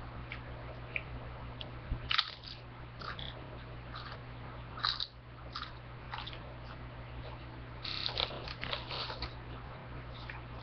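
Chips being bitten and chewed with sharp, crackly crunches. Short clusters come about two seconds in and about five seconds in, then a longer run of crunching around eight to nine seconds in.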